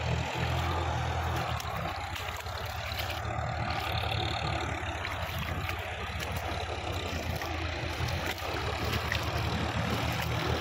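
Diesel tractor engine running steadily at a distance, a low even drone with a fine rapid pulse.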